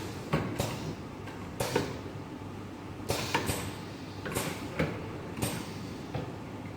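Automatic curtain pinch-pleating machine running: sharp mechanical clacks and knocks, often in pairs, about every second, over a low steady hum.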